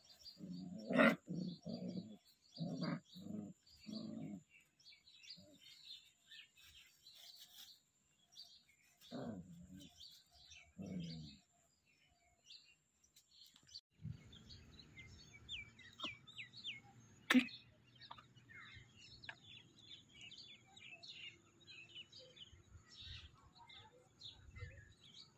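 Puppies play-fighting, giving a run of short growls and yaps in the first few seconds and two more about nine and eleven seconds in. Small birds chirp faintly throughout, and a single sharp click comes about seventeen seconds in.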